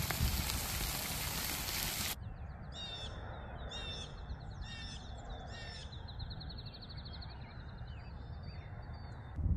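A loud steady hiss for about two seconds. Then birds call: four short harsh calls about a second apart, followed by a fast buzzy trill, over a low wind rumble.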